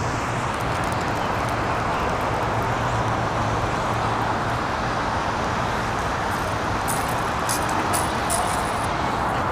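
Steady rushing background noise at an even level, with a faint low hum underneath and a few light clicks near the end.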